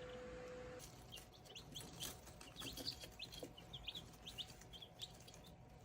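Young Buff Orpington chickens giving their good-morning trills: many short, faint, high chirps, an upbeat, contented sound that signals nothing is wrong. A steady hum cuts off under a second in.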